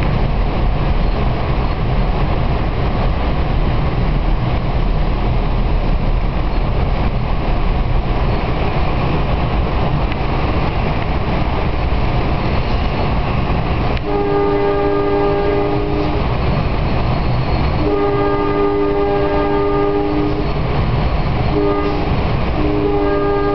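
Steady running rumble inside an NJ Transit Arrow III electric multiple-unit car at speed. About 14 seconds in, the car's WABCO AA-2 air horn sounds a chord in the pattern long, long, short, long, the standard grade-crossing signal.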